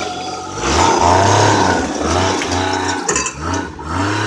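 Snowmobile engine revved in a series of short blips, pitch rising and falling about once a second, as the sled is driven up onto a trailer.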